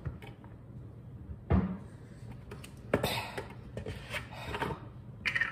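Kitchen items being handled on a countertop: a dull knock about one and a half seconds in, a sharper knock about three seconds in, then light handling and clinking noises.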